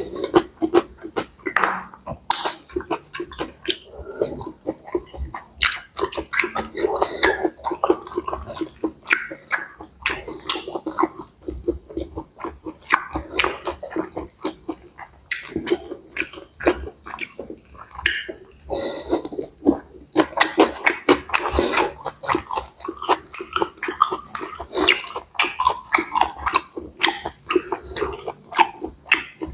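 Close-miked, wet chewing and mouth sounds of a person eating pad see ew, stir-fried rice noodles, as a rapid, uneven run of smacks and clicks.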